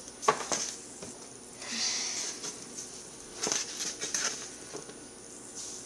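Camera handling noise: a few sharp knocks and clicks, and a short hiss about two seconds in.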